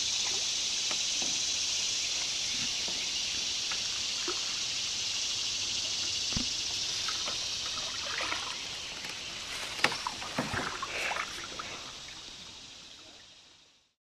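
A canoe paddle dipping and dripping in river water, with scattered small splashes and knocks, over a steady high hiss. Everything fades out near the end.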